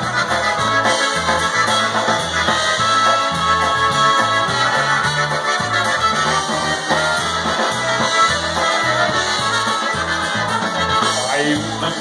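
Live polka band playing an instrumental passage: accordion and trumpet over a steady, bouncing bass-and-drums beat.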